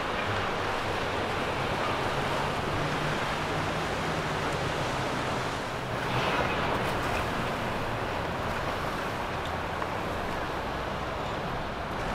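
Twin Mercury 300 outboard engines on an Axopar centre-console running at cruising speed, a steady low hum under the hiss of the hull's wash and spray, with wind on the microphone. The engine hum is plainest in the first half and recedes after about six seconds, leaving mostly water noise.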